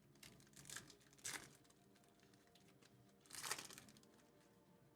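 Trading-card pack wrapper crinkling and tearing open in a few short, faint bursts, the loudest about three and a half seconds in.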